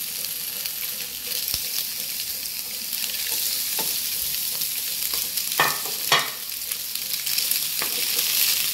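Cubes of steamed egg sizzling steadily as they fry in hot oil in a pan. A few sharp knocks against the pan come in the second half, the loudest two near the middle.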